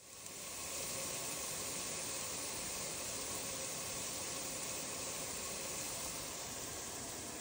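Sliced onions sautéing in oil in a pot on the stove: a steady sizzling hiss as they soften.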